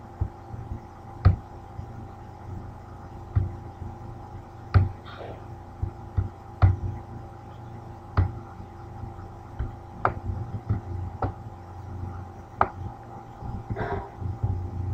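Computer mouse clicking: single sharp clicks spaced irregularly every second or two, over a steady low hum.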